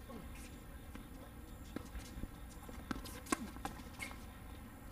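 Tennis rally on a hard court: several sharp knocks of the ball on racket strings and on the court, the loudest just over three seconds in, with players' footsteps.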